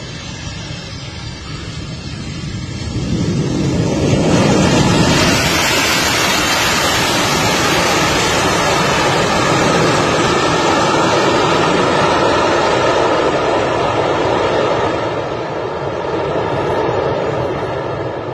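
Boeing 737-200 freighter's Pratt & Whitney JT8D jet engines as it lands and rolls down the runway: a loud jet rush that swells about four seconds in and stays strong, easing a little near the end.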